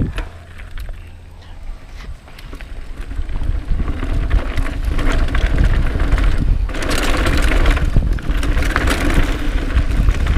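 Cannondale Claymore full-suspension mountain bike riding down a rocky, rooty trail, heard from a chest-mounted action camera: wind rumbling on the microphone, tyres over dirt and rocks and the bike rattling. It gets louder after about three seconds as the pace picks up.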